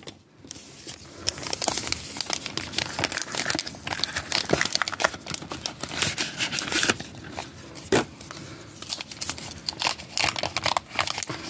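A paper McDonald's Pokémon card pack being torn open and crinkled by hand: a dense, irregular run of crackling and tearing, with one sharper snap about eight seconds in.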